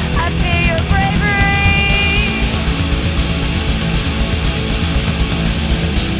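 Loud, heavy distorted rock music with electric guitar. A held melodic line rides on top for the first couple of seconds, then gives way to a dense wall of guitar.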